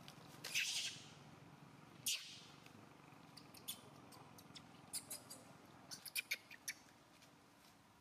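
Dry leaf litter rustling and crackling as small monkeys move over it: two short scuffs early on, then a scatter of sharp crackles.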